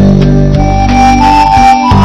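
Instrumental background music with sustained chords and a slow melody of held notes stepping upward.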